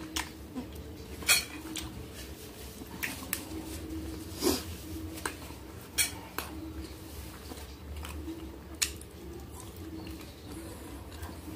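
Eating sounds: a metal fork clicking sharply against a glass baking dish several times, with soft chewing of ravioli in creamy white sauce, over a steady low hum.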